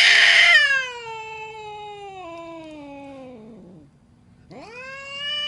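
Angry cat yowling: one long drawn-out call that starts harsh and loud, then sinks steadily in pitch for about three and a half seconds, and after a brief pause a second yowl that rises and holds near the end. A hostile, threatening caterwaul.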